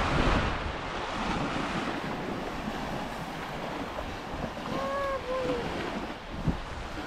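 Sea waves washing on the shore, with wind buffeting the microphone. About five seconds in comes a brief two-part high-pitched call, and a single soft knock follows a moment later.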